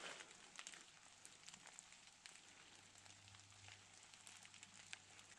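Near silence with faint, scattered crackles of footsteps on dry leaf litter and twigs in the bush, over a faint steady low hum.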